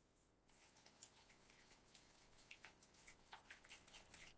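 Near silence with a few faint, scattered ticks.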